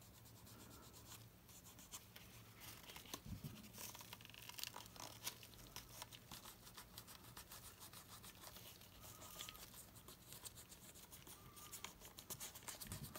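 Faint rubbing and handling sounds: a nitrile-gloved hand working shoe grease into a leather knife sheath, with small scattered scratches and clicks.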